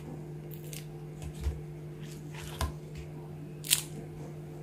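Crisp, flaky fried puris crackling and rustling against each other as they are picked up and handled on a plate, in about four short bursts, the loudest near the end. A steady low hum runs underneath.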